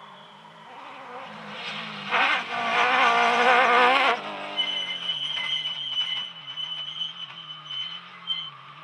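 Off-road rally buggy's engine revving hard as it drives past close by, loudest between about two and four seconds in, then cut off sharply. After the cut, a quieter engine drones from a car further off, with a steady high whine.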